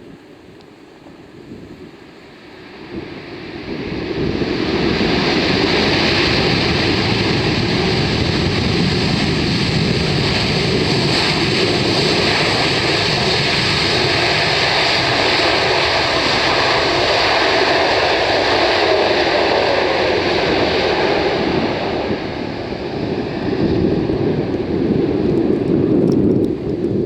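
Jet airliner on landing approach passing close by, its engine roar building over a couple of seconds and holding loud. A faint whine drops slowly in pitch through the middle. Strong wind buffets the microphone throughout.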